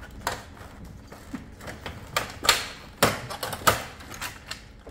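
A handful of sharp plastic clicks and knocks as parts of a Samsung 360 ceiling cassette air conditioner are unclipped and pulled out by hand. The loudest come a little past the middle.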